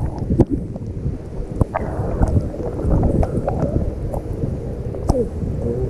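Wind buffeting the microphone outdoors by the sea, a steady low rumble with scattered knocks and handling bumps.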